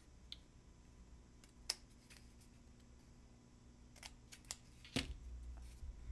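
Scissors cutting through a cardboard toilet paper roll: a handful of separate snips, the loudest about a second and a half in and near the end.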